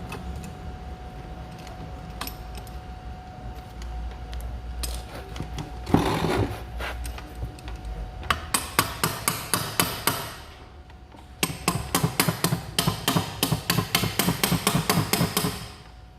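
Hammer striking metal, likely tapping a Corsa gearbox casing to work it loose. One heavy knock about six seconds in is followed by two runs of quick taps, about five or six a second, with a short pause between them.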